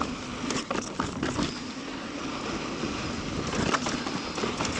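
Mountain bike rolling down a dirt trail: steady tyre and wind noise with scattered clicks and knocks from the bike over rough ground.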